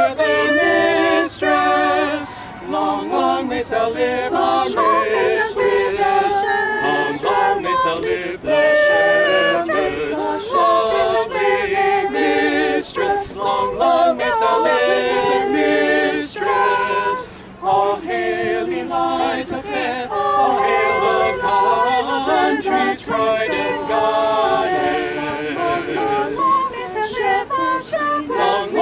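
Small mixed ensemble of men's and women's voices singing an English Renaissance madrigal a cappella in several interweaving parts, with a brief break in the singing a little past the middle.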